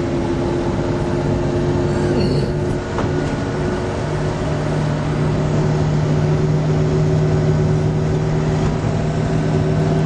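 Car engine and road noise heard from inside the cabin while driving slowly through town, a steady drone.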